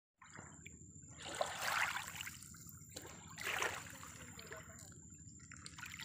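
Small waves lapping and washing over stones at the shoreline, two swells of sloshing about two seconds apart over a low steady rumble of water, with a faint steady high-pitched tone underneath.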